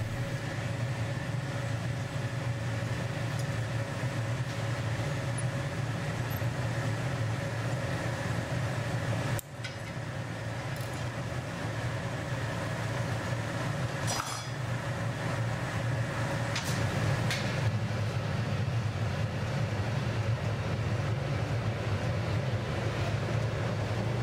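Steady low rumble of a glassblowing hot shop's gas-fired furnace and glory hole burners with the workshop's ventilation running, dipping briefly about nine seconds in, with a few faint clinks of tools later on.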